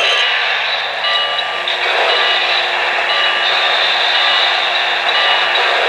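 Steady loud hiss from an O-gauge model train's sound system, with faint tones that come and go over it and a low hum beneath.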